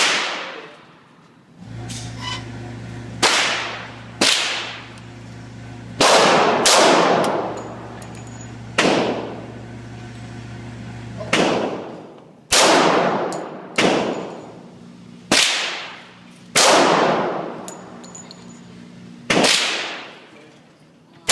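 Gunshots at a shooting range: about a dozen single shots fired one to two and a half seconds apart, each with a long echoing tail.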